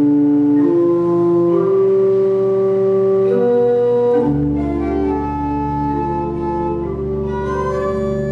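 Church pipe organ playing slow, sustained chords that change about once a second; about four seconds in, a deep pedal note comes in beneath them and holds.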